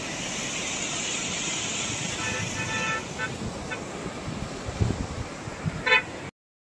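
Vehicle horn sounding over a steady rushing background: one held honk about two seconds in, two short toots after it, and a louder short honk near the end, followed by an abrupt cut to silence.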